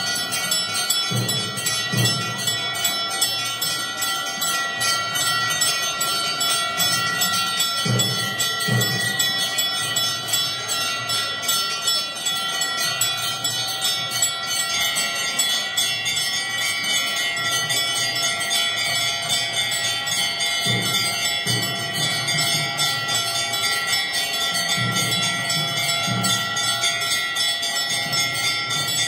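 Temple bells rung rapidly and without a break during the aarti (lamp-waving worship), several ringing tones overlapping, with occasional deeper thuds.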